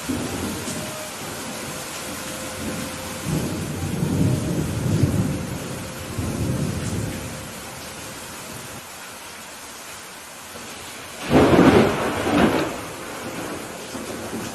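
Steady rain with thunder: low rolling rumbles a few seconds in, then a loud, sharp thunderclap about eleven seconds in.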